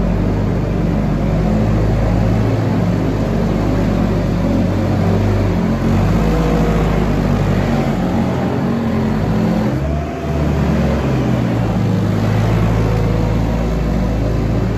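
Volvo wheel loader's diesel engine running steadily close by, with a brief rising whine about eight seconds in and a short dip in loudness about ten seconds in.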